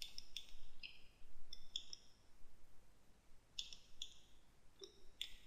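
Computer mouse buttons clicking in short, irregular runs, a few clicks at a time, as the 3D scene is worked on.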